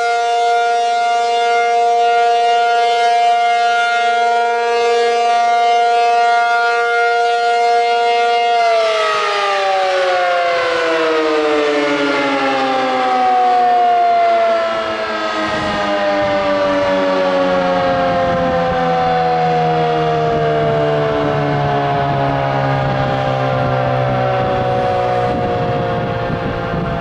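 ACA Penetrator-50 (P-50) 8/12-port dual-tone tornado siren sounding its steady alert tone, then cutting power about nine seconds in and winding down, its two-note chord sliding slowly and smoothly lower.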